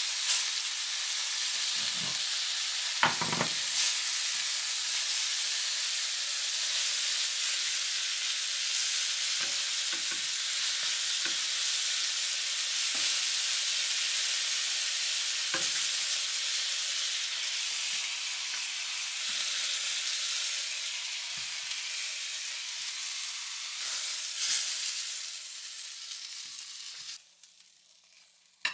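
Coated walleye fillets sizzling steadily as they pan-fry in oil in a skillet, with scattered clicks of metal tongs against the pan as they are turned. The sizzle drops away suddenly near the end.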